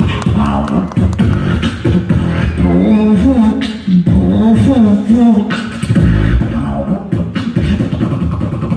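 A boy beatboxing: rapid mouth clicks and low kick-like thumps, with a wavering hummed or sung tone layered over the beat in the middle.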